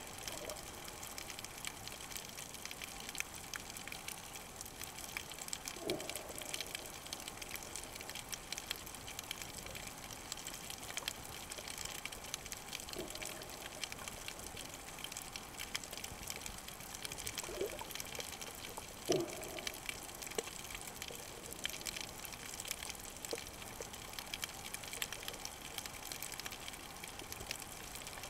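Underwater reef ambience: a steady fine crackling of tiny clicks, with a few short low gurgles, the loudest about two-thirds of the way through.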